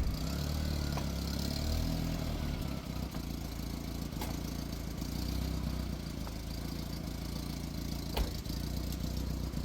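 A vehicle engine running steadily at low revs, with a few faint clicks.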